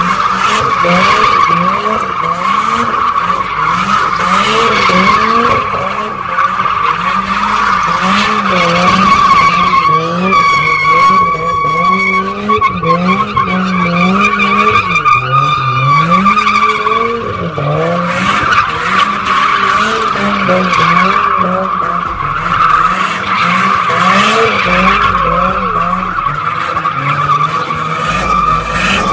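Car doing donuts: its tyres screech continuously as they spin and slide on the pavement, while the engine is revved up and down over and over to hold the rear wheels spinning.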